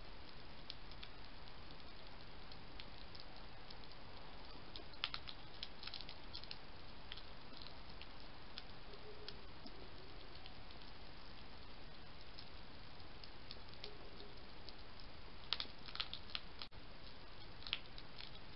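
A European hedgehog crunching dry food from a bowl: irregular small crunches and clicks over a steady hiss, busiest about five seconds in and again near the end.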